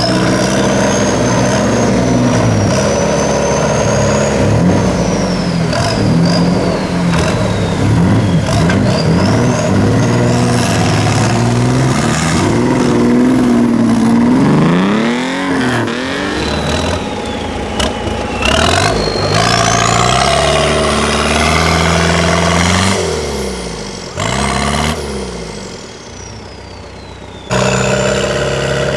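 Off-road 4x4 engines revving hard and unevenly as the vehicles churn through deep mud, the pitch repeatedly rising and falling, with high whines climbing to a peak past the middle. The sound drops away for a few seconds near the end, then comes back loud with another engine running.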